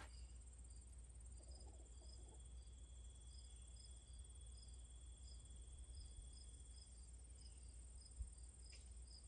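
Faint insects: a steady high-pitched trill with short chirps repeating about twice a second.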